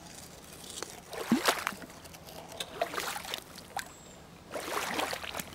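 A plastic toy crocodile pushed from muddy ground into a shallow puddle, with small splashes and sloshing water in a few short bursts.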